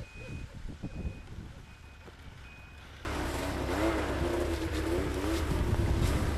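A snowmobile's reverse warning beeper sounds faintly, a short high beep about every 0.8 s, over low scuffling as the machine is worked in deep snow. About three seconds in, it gives way abruptly to the louder, steady running of a snowmobile engine riding along the trail, its pitch rising and falling slightly.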